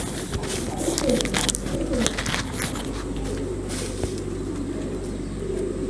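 Domestic fancy pigeons cooing, a low wavering call, with a few short clicks and rustles in the first two seconds.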